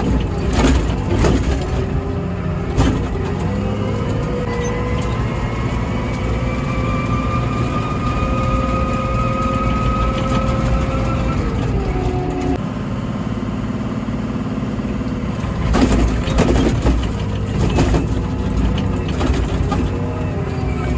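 Komatsu WA100 wheel loader's 4.9-litre diesel engine working under load, heard from the operator's seat, with a whine that rises slowly and then drops about twelve seconds in. Sharp clunks and knocks come near the start and again about sixteen to nineteen seconds in.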